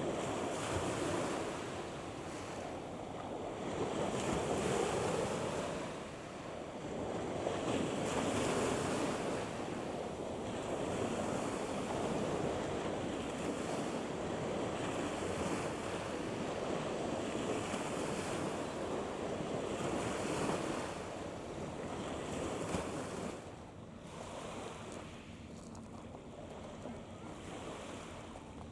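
Wind buffeting the microphone over a steady rush of waves, swelling and easing every few seconds, then dropping back noticeably about three-quarters of the way through.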